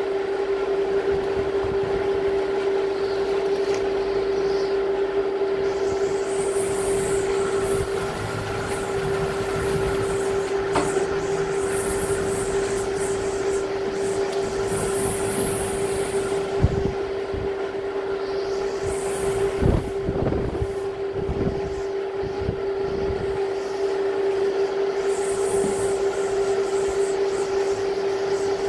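Typhoon winds blowing steadily, with one unwavering whistling tone held throughout. A couple of dull thumps come about two-thirds of the way in.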